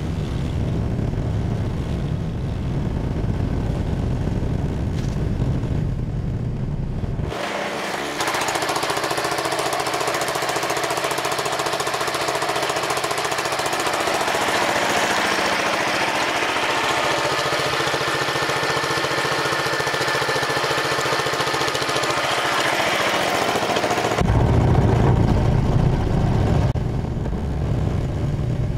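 A garden tractor's small engine runs steadily. For the first seven seconds and again for the last few seconds it is a deep, low rumble heard from a camera mounted on the tractor. In between, heard from beside the machine, it is a thinner, steady engine drone with a clear hum to it.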